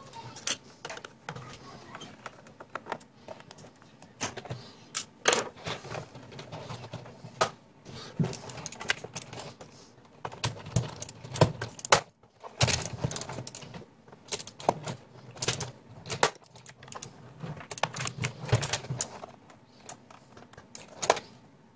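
Irregular plastic clicks, taps and rattles of a mechanical keyboard being taken apart by hand, as its top housing is worked loose, with handling noise in between.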